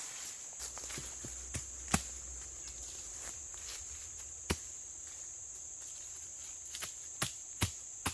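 Steady high-pitched insect chorus, crickets or similar, with a few sharp clicks or snaps scattered through.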